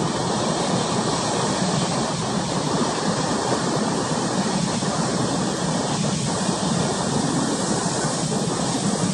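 Steady rushing of wind and choppy sea, with no distinct engine note or single events.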